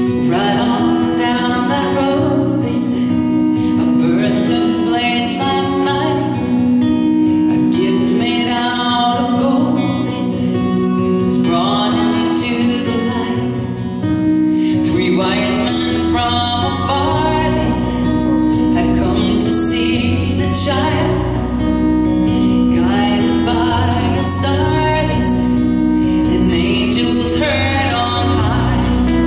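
Live song: a woman singing into a microphone over strummed acoustic guitar, amplified through PA speakers in a church. Low bass notes join about halfway.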